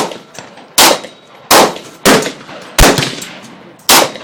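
Remington 597 .22 LR semi-automatic rifle firing six shots in fairly quick succession, each a sharp crack that trails off briefly.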